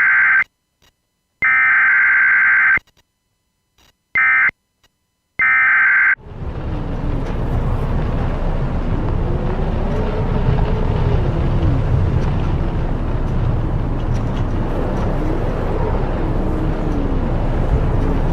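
NOAA weather radio sending several short bursts of screechy electronic alert tones. From about six seconds in they give way to strong wind buffeting the microphone, a loud, steady low rumble.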